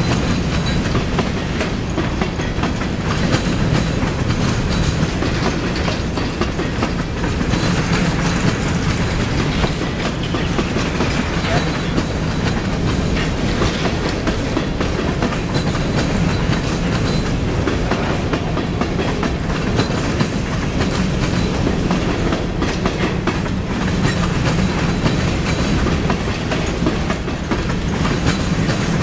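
Empty covered hopper cars of a freight train rolling past: a steady rumble of steel wheels with continual clickety-clack over the rail joints.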